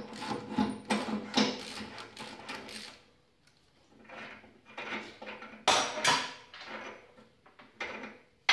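Steel hand tools and metal parts clinking and rattling against the steel fan housing and bearing: a run of irregular clicks for a few seconds, then a short lull, then a few sharp, ringing metallic clanks.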